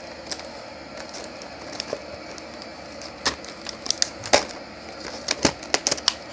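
Plastic VHS clamshell case being handled and opened: sharp plastic clicks and taps, a few in the first half and a quick cluster from about halfway, over a steady hiss.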